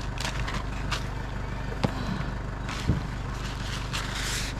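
A vehicle engine idling with a steady low hum, with a couple of sharp knocks and a brief hiss near the end.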